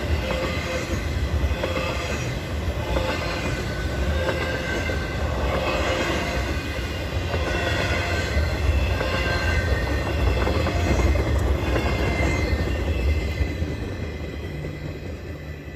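Intermodal freight train cars rolling past, with a steady low rumble and high-pitched wheel squeal coming and going. The sound fades as the last car passes near the end, and a low steady hum begins.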